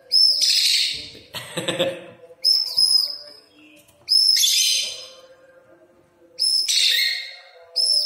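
Rosy-faced lovebird calling: about five shrill calls, each opening on a clear whistled note that breaks into a harsh chirp.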